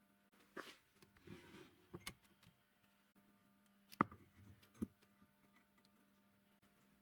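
Handling noises: a few light, scattered clicks and knocks, the sharpest about four seconds in, over a faint steady hum.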